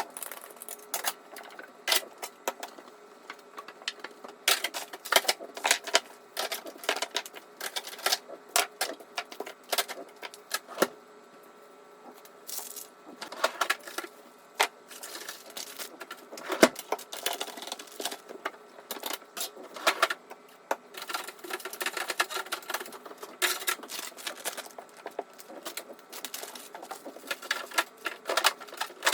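Irregular clicks, taps and clatter of food containers, bottles and shelves being handled and set down while a refrigerator is emptied and wiped clean, with a brief lull about halfway through.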